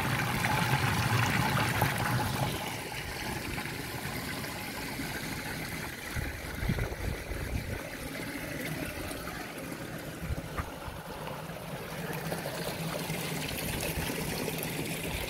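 Water running and trickling steadily through a wooden sluice flume, louder for the first couple of seconds and then softer.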